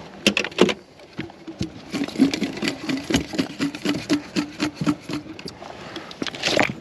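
Handling whitebait at a boat's live well: a few sharp knocks and clicks as a dip net goes into the well, then a quick, even run of soft pulses of about three a second. Near the end comes a loud splash as the bait is thrown over the side.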